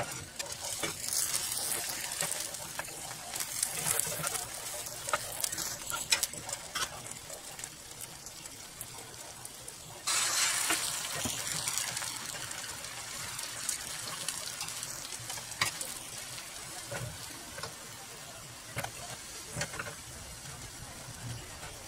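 Egg frying in a hot rectangular omelette pan, crackling with scattered sharp clicks. About halfway through, a pour of beaten egg hits the pan and sets off a sudden loud sizzle that settles into a steady, slowly fading sizzle.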